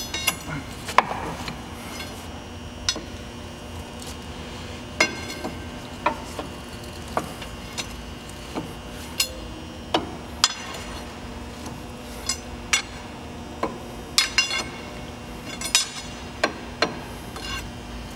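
Steel pry bar clinking and knocking against the steel brake rigging and slack adjuster of a locomotive truck as it is levered to take up the brake slack. Irregular sharp metallic clinks, roughly one a second, over a steady hum.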